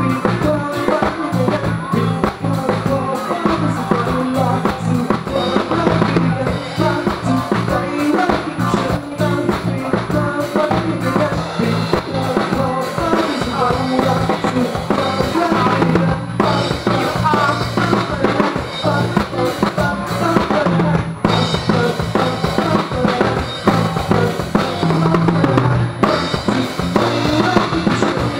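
Drum kit played continuously at full volume, with kick drum, snare and cymbals, heard from right at the kit. Other instruments hold low pitched notes underneath, changing every few seconds.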